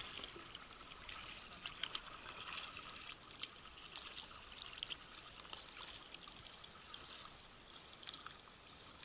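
Kayak paddling: water splashing and dripping off the blades of a double-bladed paddle as it dips and lifts, in small irregular splashes and trickles.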